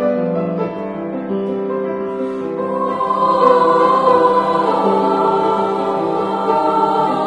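Children's choir singing with piano accompaniment. The piano is heard on its own at first, and the voices come in about three seconds in, swelling louder.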